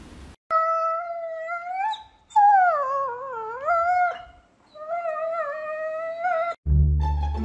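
A dog howling: three long, wavering howls that slide up and down in pitch. Music with plucked strings comes in near the end.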